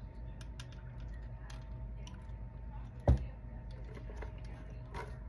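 Small clicks and taps of jewelry pieces being handled on a pearl-and-brooch jewelry tree, with one sharp thump about three seconds in, over a steady low hum.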